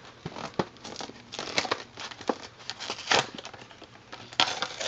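Paper card and clear plastic blister packaging being pulled apart and torn open by hand: irregular crinkling and crackling, with louder snaps about one and a half, three and four and a half seconds in.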